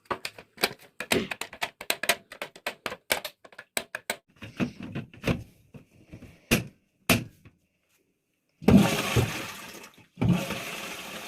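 Hard plastic and ceramic flush-cistern parts clicking and knocking as they are handled, then two short rushes of water as the repaired toilet cistern is flushed, each starting suddenly and dying away.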